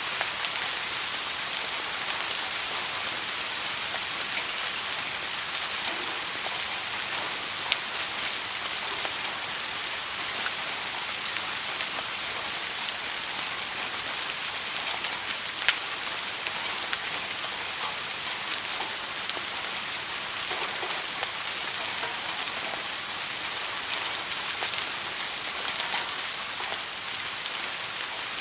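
Steady soft rain falling, an even hiss with scattered sharper drop ticks, two of them standing out about 8 and 16 seconds in.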